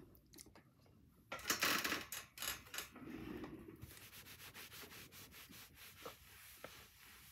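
Juice sucked through a straw from a cardboard juice box: noisy slurps and rubbing, with the loudest hissy slurp about one and a half seconds in and a run of short sucking strokes in the second half.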